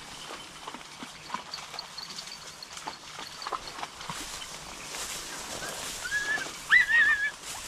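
Hunting dogs pushing through dry reeds and brush, with scattered rustling and crackling of stems. Near the end a dog gives a short, high, wavering yelp, the loudest sound.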